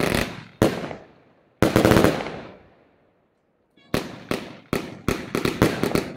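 Lesli 'Wild Lion' firework battery firing: sharp bangs of shells bursting overhead, roughly one every half second, each with a short fading echo. After a pause of about a second midway, the bangs return and come faster and faster as the finale builds.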